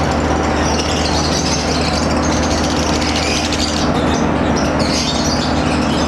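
Electric fan motor humming steadily with a rush of moving air, with caged lovebirds chattering high above it.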